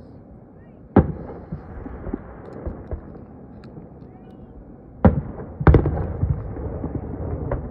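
Aerial firework shells bursting: a sharp boom about a second in, two more in quick succession around five seconds in with smaller pops after them, and another boom near the end.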